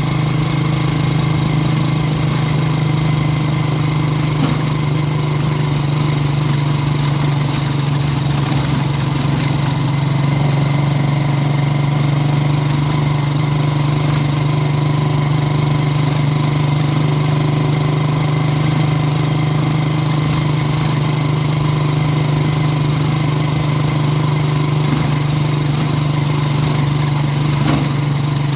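Motorcycle engine running steadily while riding along, an even low hum with no change in speed.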